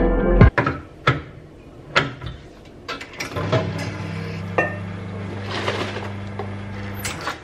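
Kitchen clatter: a cup and a stainless milk jug set down in several sharp knocks. An espresso machine starts a steady hum about halfway through and stops shortly before the end.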